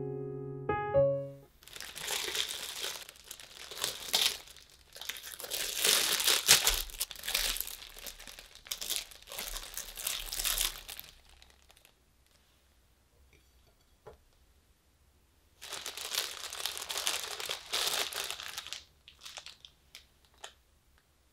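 Piano music ending about a second in, then a thin plastic bread bag crinkling and rustling as slices of bread are taken out, in two long stretches with a pause between.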